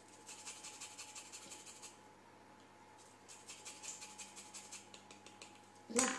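Lemon zest being grated on a small hand grater: two runs of quick rasping strokes with a short pause between, then a sharp knock near the end.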